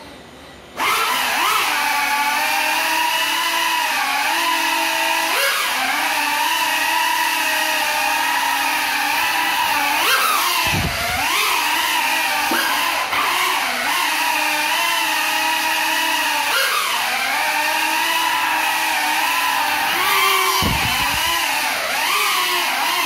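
FPV quadcopter's motors spinning up about a second in and running with a steady whine that rises and falls with the throttle, dropping sharply in pitch twice and picking back up, while the quad stays on the floor on its broken propellers.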